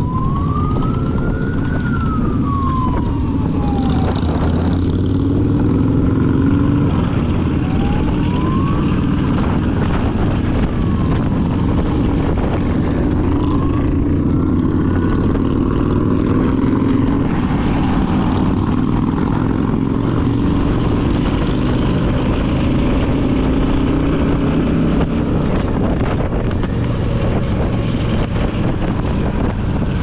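Motorcycle engine running under way with wind noise over the microphone, its pitch shifting as the rider changes speed. In the first fifteen seconds a few separate rising and falling tones sound over it.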